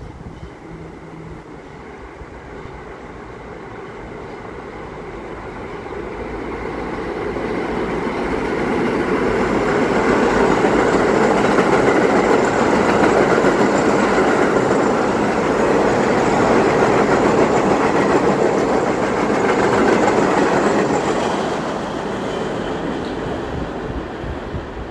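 Stainless-steel New York City subway train passing through the station on the express track without stopping. It grows louder as it approaches, runs loud past the platform for about ten seconds, then fades as it leaves.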